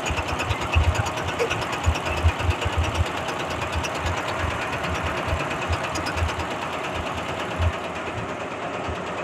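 Computer embroidery machine stitching, a rapid, even clatter of needle strokes with low thuds. It is running normally after its wiring was replaced and its design alignment reset.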